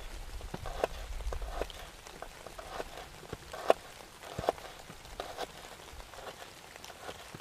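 Freezing-rain meltwater dripping, scattered irregular drops and taps, with two louder taps a little after three and a half and four and a half seconds in. A low rumble fades out in the first second or so.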